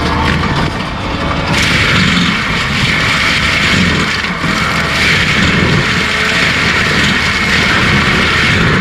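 Skid steer running with its forestry stump grinder/mulcher head working: a loud, steady mechanical noise.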